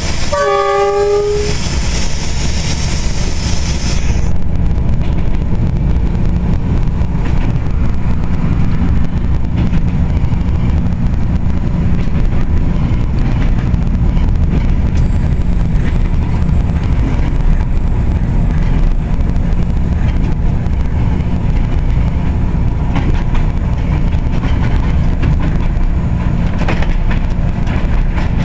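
Diesel locomotive running, heard from inside its cab: a steady low drone. It opens with a horn blast about a second long, and a hiss that stops about four seconds in.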